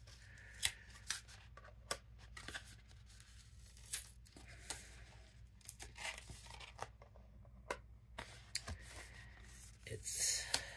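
Light, irregular clicks and taps of thin metal cutting dies being set down and shifted on a die-cutting plate, with some paper handling, over a faint low hum.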